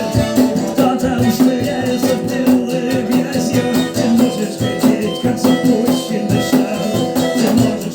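Rock band playing live: an instrumental passage of guitar with a steady beat of drums and shaker-like percussion.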